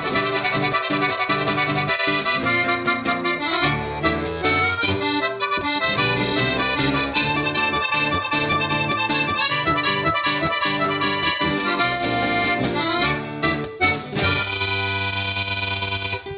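Accordions playing a lively gaúcho instrumental tune in quick runs of notes. Near the end they settle on a long held chord.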